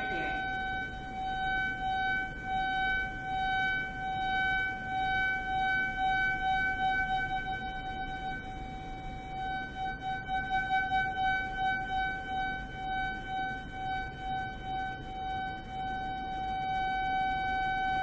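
Steady pitched tone from a microwave receiver's audio output, swelling and fading in loudness over and over, faster around the middle, then holding loud near the end. The loud peaks mark constructive interference and the dips destructive interference, as the moving mirror changes the difference between the two beam paths through whole and half wavelengths of the 3 cm microwaves.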